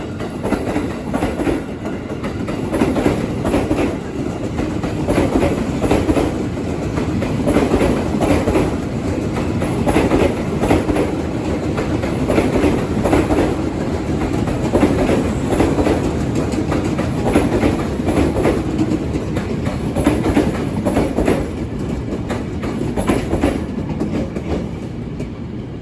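Train passing at close range, its wheels clattering over the rail joints in a repeating rhythm, with a continuous rumble underneath.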